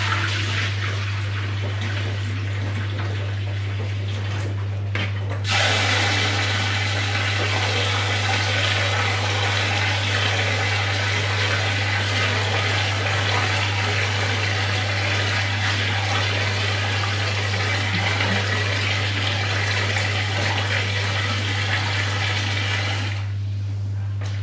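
Kitchen tap running hot water into a plastic bowl of rice as the rice is rinsed. The flow is lighter for the first few seconds, comes on strongly about five seconds in, and stops shortly before the end. A steady low hum runs underneath.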